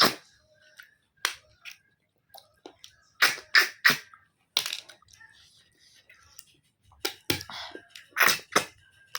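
Someone eating snails in their shells at close range: about ten short, sharp eating sounds in uneven clusters, with quiet gaps between.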